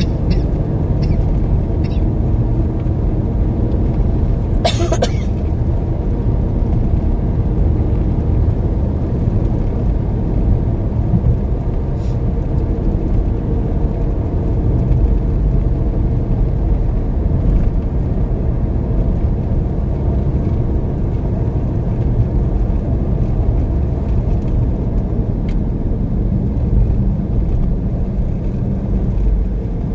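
Steady low rumble of a car driving on an open road, heard inside the cabin: engine and tyre noise. A short sharp noise cuts in briefly about five seconds in.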